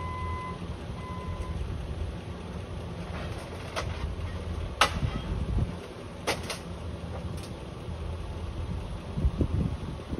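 Forklift engine running steadily, its reversing alarm beeping through the first second or so. Several sharp knocks follow as its forks handle a stack of boxes.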